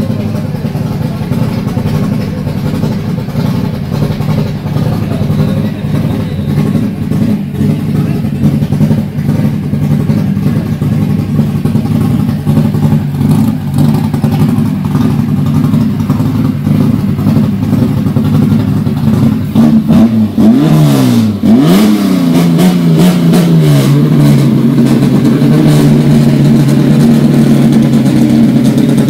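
Chevrolet Chevy Serie 2's six-cylinder engine running through a chrome side-exit exhaust pipe, with two quick throttle blips about two-thirds of the way in before it settles back to a steady idle.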